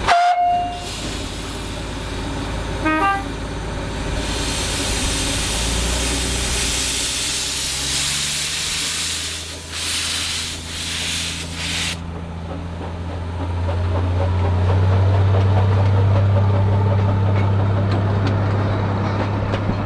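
Narrow-gauge 0-4-2T tank engine No.6 Mr G giving two short whistle toots, then a loud hiss of steam from its cylinder drain cocks as it starts away, which cuts off suddenly after about eight seconds. The low, steady rumble of the carriages rolling past then grows louder towards the end.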